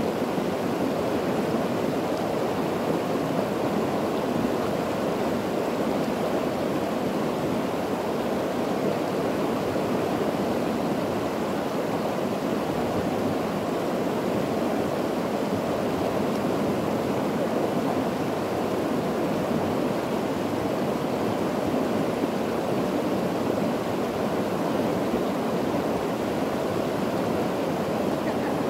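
Fast, muddy river water rushing past in a steady, unbroken wash.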